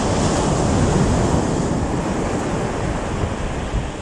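Surf washing onto the beach, mixed with wind buffeting the microphone as a low, uneven rumble. The sound swells about a second in, then slowly eases.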